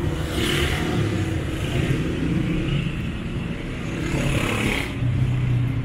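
City street traffic: motor vehicle engines running and passing close by, with a low steady rumble and a brief louder rush about four seconds in that cuts off sharply.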